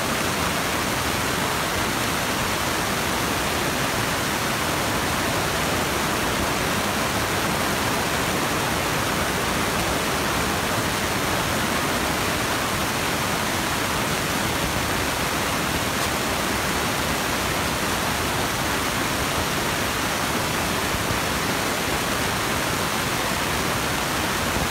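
A steady, even hiss that does not change or break.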